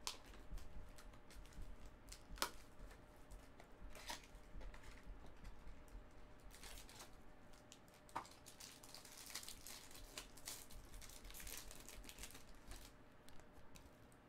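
Cellophane wrapping and a foil trading-card pack crinkling and tearing as they are opened by hand, with scattered sharp clicks; the loudest snap comes about two and a half seconds in, and the crinkling is densest in the later part.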